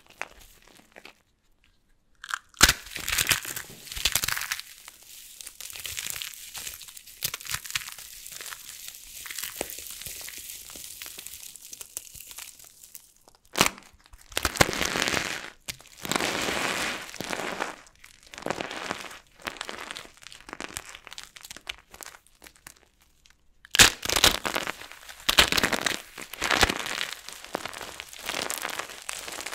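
Dry, starch-packed soap crunching and crackling as it is crushed, in three runs of dense crackle. Each run opens with a sharp crack and is split from the next by a brief pause.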